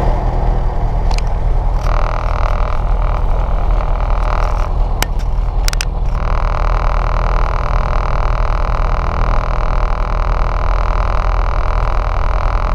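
Piper Cherokee 140's four-cylinder Lycoming engine and propeller running steadily, heard inside the cabin as a loud even drone. A few sharp clicks come around the middle, and a steady higher whine runs over the engine from about six seconds in.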